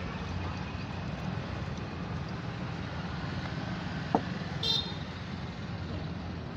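Steady street traffic noise, with a sharp click about four seconds in and a brief high-pitched toot just after.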